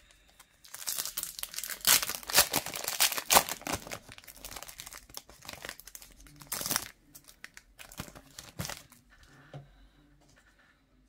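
Trading card pack wrapper torn open along its crimped seam, with loud tearing and crinkling for the first few seconds. This is followed by a few shorter crinkles as the cards are slid out of the wrapper.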